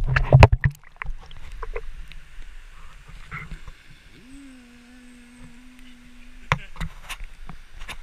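Sharp knocks and bumps of a GoPro camera being handled, loudest in the first second, over a steady rush of stream and waterfall water. Midway a person's voice holds one long steady note for about two seconds, and a few more knocks come near the end.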